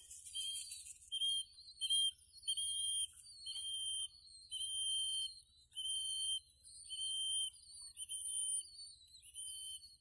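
A pigeon-training whistle blown in a series of steady high-pitched toots, about one a second, some short and some held longer. It is the call that tells the pigeons to come and feed.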